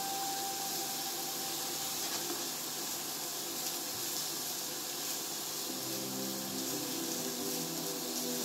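Chopped onion and garlic cooking in a dash of water with no oil in a nonstick frying pan, giving a steady hiss of simmering and steam as they are stirred with a silicone spatula.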